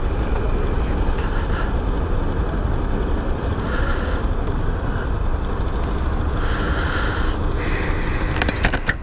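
Chinese motorcycle engine running under the rider as he pulls away from a light and turns, a steady low rumble heard from the on-bike camera. A few sharp clicks come near the end.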